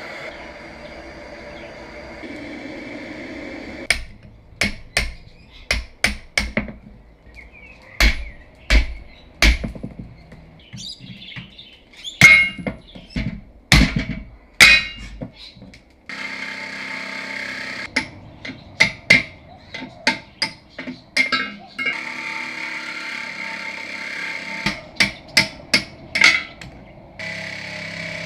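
Hammer blows on steel, driving old rubber bushes and their sleeves out of the car's suspension parts: a long run of sharp metal strikes, several a second at times. They sit over the steady hiss of a gas torch used to burn the old rubber out, which is heard alone for the first few seconds and again under the strikes from about halfway.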